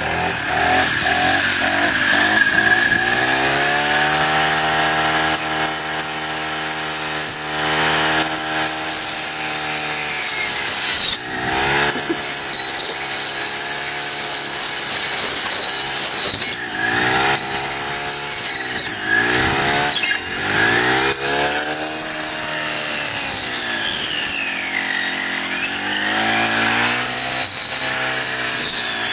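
Honda four-stroke string trimmer fitted with a saw blade, its small engine revving up from low speed and then rising and falling in pitch over and over, with a high whine above it that drops and climbs back once near the end.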